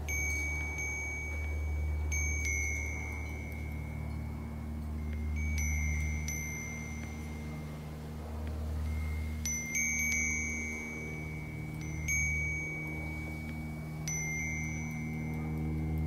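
Metal bell wind chime ringing as the bells swing against the clapper: a clear high ring struck every second or two, each note ringing on into the next. A steady low hum runs underneath.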